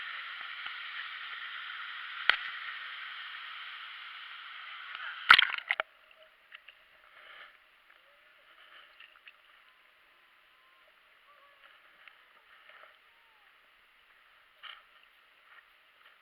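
Steady rushing of waterfall water, with a sharp knock about two seconds in and a loud splash about five seconds in. After the splash the rushing cuts off suddenly, leaving only faint, scattered sloshes and drips.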